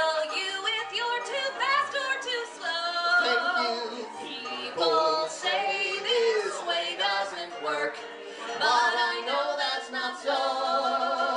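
A man and a woman singing a duet into microphones.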